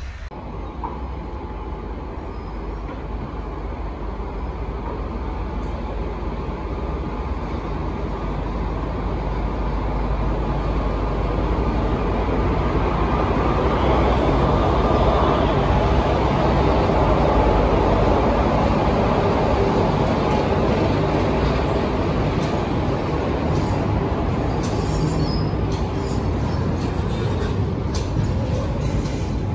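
Freight train rolling past on the track: a steady rumble of wheels and wagons that builds over the first half and then holds loud.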